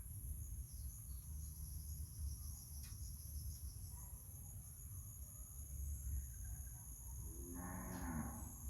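Insects drone steadily and high-pitched over a low rumble. Near the end a short call of about a second sounds once, falling slightly in pitch.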